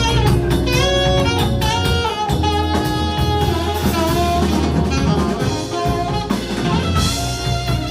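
Background music: a jazzy track with saxophone or brass melody over a drum kit and bass.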